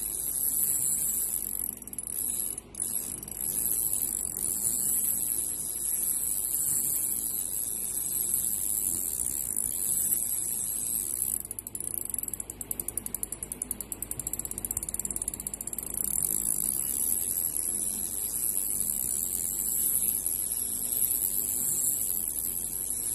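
Daiwa Exist 2022 LT 2500 spinning reel cranked by hand, the rotor spinning with a steady high-pitched whir. For a few seconds around the middle, a rapid even run of fine ratchet-like clicks comes in.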